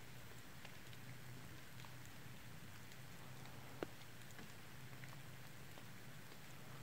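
Quiet snowy woodland ambience: a faint steady hiss with a few small scattered ticks, one sharper tick about four seconds in.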